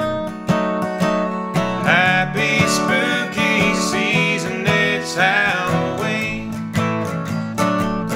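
Acoustic guitar played as an instrumental break: steady strummed chords, with a melody line over them from about two seconds in until about six seconds in.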